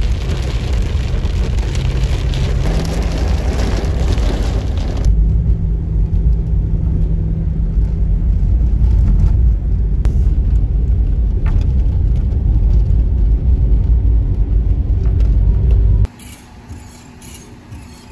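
Car driving on a wet road in heavy rain, heard from inside the cabin: rain on the windshield and tyres hissing on the wet road over a heavy low road rumble. About five seconds in the hiss falls away, leaving mostly the low rumble, and near the end it cuts off suddenly to a much quieter background.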